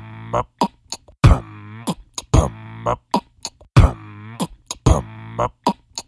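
Instrumental hip hop beat: a looped pattern of sharp drum hits and ticks over a steady low bass note, with a pitched sound that slides down in pitch, the whole loop repeating about every two and a half seconds.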